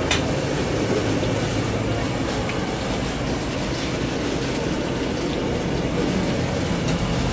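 Hot oil bubbling and sizzling in a large iron kadhai as besan-battered bread slices are lowered in to fry, over a steady rumbling background noise. A single sharp click comes right at the start.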